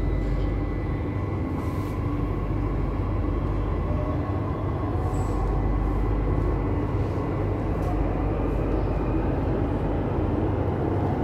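Delhi Metro train running, a steady low rumble with no breaks.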